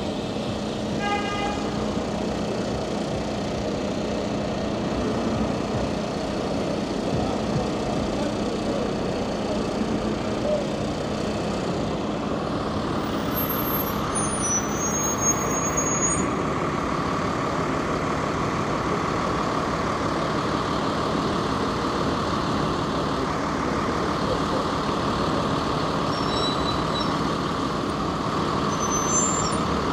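City street traffic: a steady rumble of trucks, buses and cars going by, with a short toot about a second in. From about halfway there is a steady whine, and a few faint high squeals come midway and near the end.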